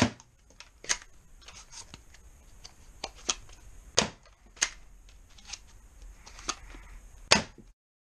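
Sharp plastic clicks and clacks from a red Nerf Mega Talon blaster being handled, with three louder knocks at the start, about four seconds in and near the end. The sound cuts off abruptly just before the end.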